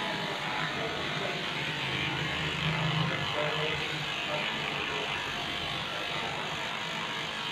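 Electric dog-grooming clippers running steadily while shaving through a matted coat.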